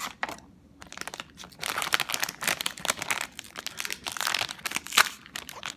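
Foil-lined Pocky snack bag crinkling as it is handled and opened, in dense crackles. One sharp, louder crackle comes about five seconds in.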